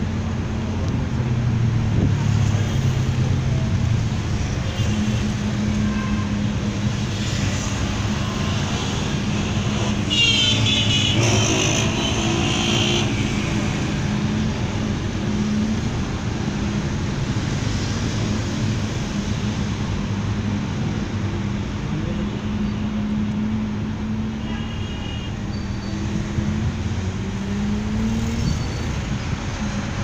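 Steady engine and road noise of a vehicle driving through city traffic, heard from on board, with a constant low engine hum. About ten seconds in, a louder pitched sound that slides in pitch passes for about three seconds.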